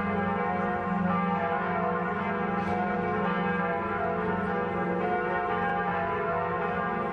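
Church bells ringing in a continuous, overlapping peal, many tones sounding together without a break.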